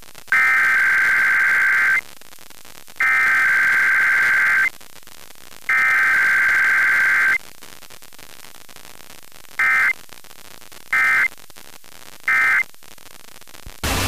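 Emergency Alert System SAME data tones of a Required Weekly Test: three buzzy digital header bursts of about a second and a half each, then three short end-of-message bursts, with radio hiss between them. There is no attention tone or voice message.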